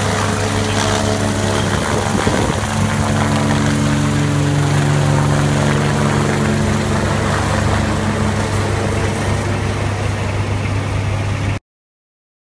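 Medical helicopter flying low overhead, its rotor and turbine engines running with a steady deep hum. The sound cuts off abruptly near the end.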